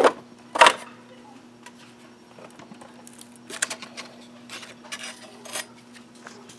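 Two sharp clicks as the cover of a Delta benchtop belt sander is unlatched and opened, then light rattling and rubbing as the cloth sanding belt is worked off its rollers by hand. The sander's motor is not running.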